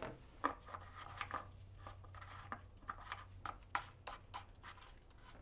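Faint clicks and rubbing as a gloved hand fits the oil filler cap back onto the golf cart engine and wipes around it with a shop rag, over a low steady hum.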